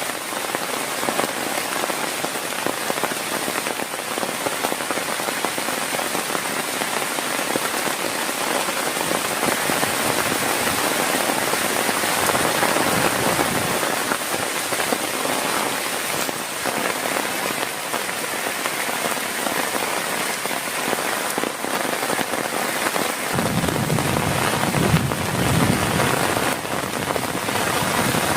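Heavy rain falling steadily and densely, drumming on a surface. Near the end a low rumble comes in under the rain for a few seconds.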